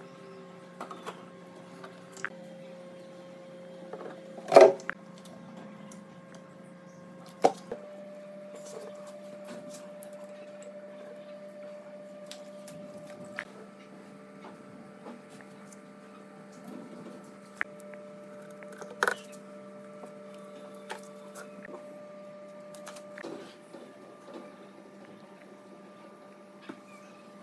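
A steady machine hum whose pitch shifts a couple of times, with scattered clicks and knocks over it. The sharpest knock comes about four and a half seconds in, and another comes near nineteen seconds.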